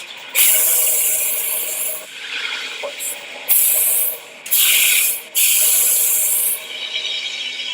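Repeated bursts of hissing spray, four in a row, the first about a second and a half long and the others shorter, with a faint steady tone underneath.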